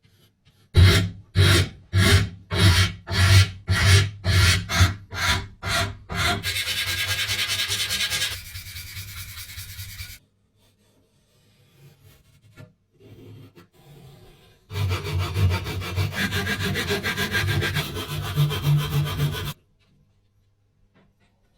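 Hand rasping strokes of abrasive work: about a dozen quick separate back-and-forth strokes, then a longer stretch of continuous rubbing. After a pause there is another few seconds of steady rubbing that stops near the end.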